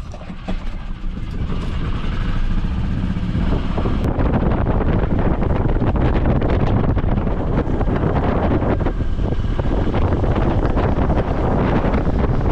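A vehicle driving, with wind noise on the microphone. The noise builds over the first two seconds, then holds steady.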